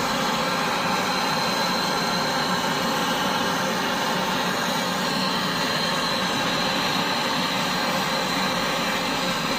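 Brazing torch burning with a steady hiss, heating a leaking copper air-conditioner pipe joint to braze it again.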